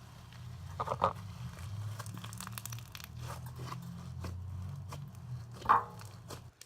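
Slime being squeezed and stretched by hand, with a run of small crackling and popping clicks and two louder bursts, one about a second in and one near the end.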